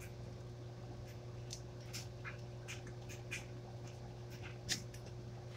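Salt being shaken from a Morton iodized salt canister: a series of short, soft hissing rattles, roughly one every half second, over a steady low hum.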